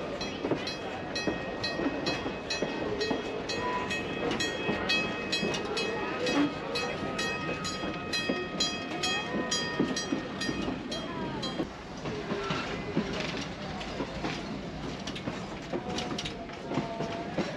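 Passenger train rolling along, its wheels clicking evenly over the rail joints about twice a second under a steady high whine. About two-thirds of the way through, the even clicking stops and gives way to a looser, irregular rattle.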